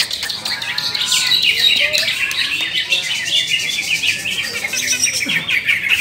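Many caged green leafbirds (cucak ijo) singing at once: a dense, unbroken stream of overlapping high chirps and trills.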